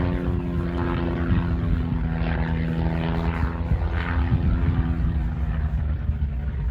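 Vintage World War One-type propeller aircraft engine running overhead, its note dropping slightly about four seconds in. The engine sounds rough enough that an onlooker suspects ignition trouble, such as a bad condenser.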